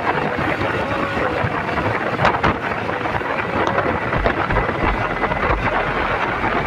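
Wind rushing and buffeting over the microphone of a motorcycle riding at road speed, with low rumbling gusts that bury the engine.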